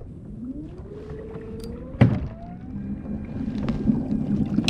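Newport Vessels NK-180S brushless electric kayak motor spinning up with a rising whine, then running with a steady low hum as it pushes the kayak. There is a sharp knock about two seconds in and another at the end.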